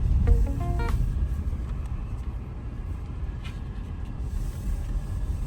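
Car driving, with a steady low rumble of engine and road noise. The rumble eases off a little after about two seconds.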